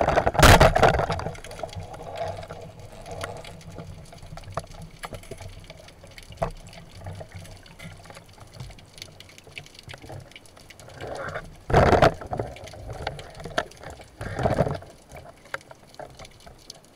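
Underwater water noise around a diver's camera: a steady wash with bubbling, broken by a sharp knock about half a second in and loud rushes of water about eleven to twelve and fourteen seconds in.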